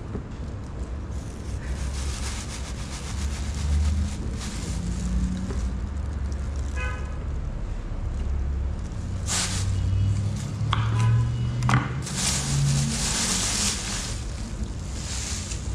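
A kitchen knife slicing cantaloupe on a wooden cutting board, with chunks dropped into a blender jar, over a steady low rumble. There are scraping hisses, the loudest a couple of seconds long past the middle, and a single sharp knock.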